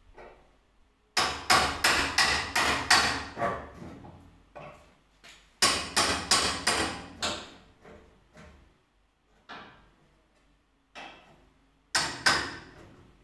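A hammer striking in quick runs of sharp blows, about three a second, with a single knock or two between the runs.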